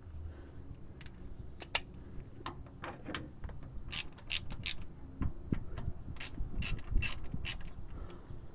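Ratchet wrench clicking in short irregular runs while the bolts of a truck's differential cover are loosened.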